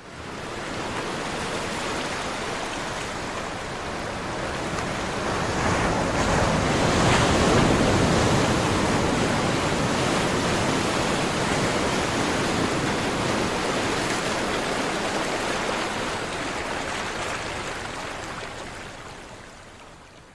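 Caribbean sea surf: a steady rush of waves washing in. It swells to its loudest about seven seconds in, then slowly fades away near the end.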